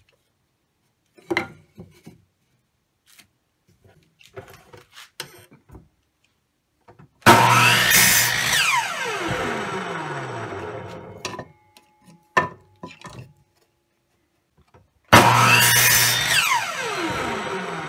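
Electric miter saw run twice, about seven and fifteen seconds in: each time the motor starts abruptly, the blade cuts through a wooden board, and the motor winds down with a steadily falling whine after the trigger is released. In between there are light wooden clunks as the board is handled and set against the saw's fence.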